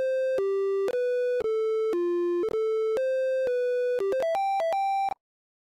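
Simple synthesizer jingle of buzzy electronic beep tones played one note at a time, each about half a second, then a quick run of short notes climbing higher before it cuts off suddenly about five seconds in.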